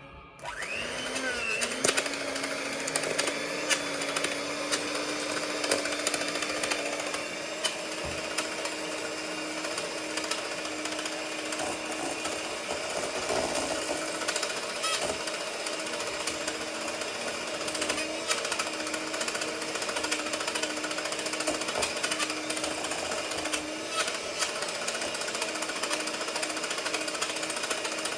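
Electric kitchen mixer beating melted butter and sugar: the motor spins up with a brief rising whine just after the start, then runs at a steady hum. The mixer is struggling to work.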